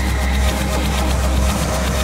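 Experimental electronic music played backwards: a dense, noisy wash over a deep bass drone that shifts in steps.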